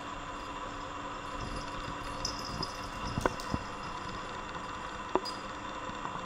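Steady background hum and hiss, with a few light knocks: several around three seconds in and one near five seconds.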